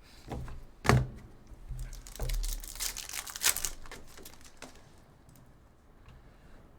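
A sharp thump on a tabletop about a second in, then a couple of seconds of crinkling pack wrappers and cards being handled, fading to quiet room tone.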